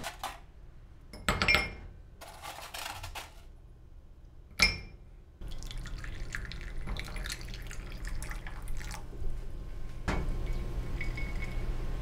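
Two sharp clinks of crockery on a stainless steel drainboard, the second ringing. Then hot coffee is poured from a glass Kalita server into a ceramic cup for about three and a half seconds.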